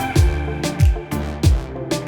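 Background music with a steady beat: a kick drum with a falling pitch about every two-thirds of a second, sharp percussion hits between, and sustained instrumental tones over them.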